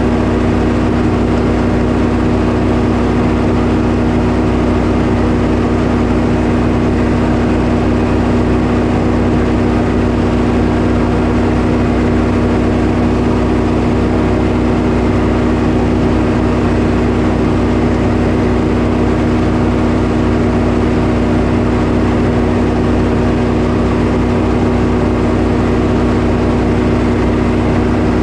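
Sawmill engine running steadily at a constant speed, loud and unchanging throughout.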